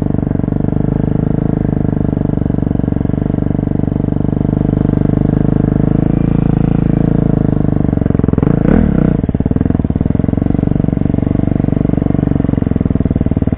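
Off-road dirt bike engine running steadily under way, with a short louder clatter about nine seconds in.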